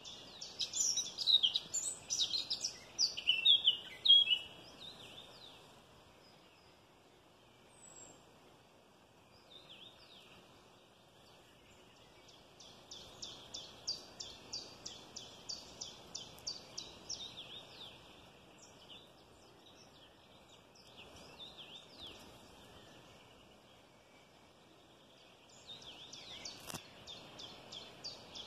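Wild birds singing: a loud burst of varied high chirps in the first four seconds, then quieter runs of quickly repeated high notes, about four a second, later on, over a faint steady background hiss.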